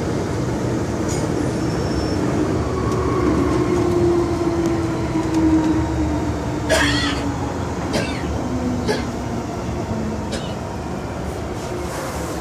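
MTR M-Train running, heard from inside the carriage: a steady rumble with a motor whine that slowly falls in pitch, and a few sharp clicks and short squeals from the wheels in the second half.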